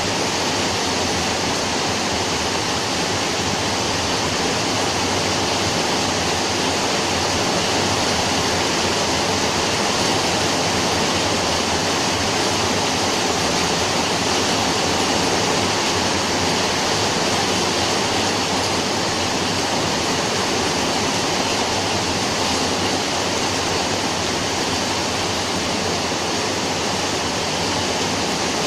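Steady heavy rain: a dense, even hiss that stays level throughout, with no separate drops, thunder or other events standing out.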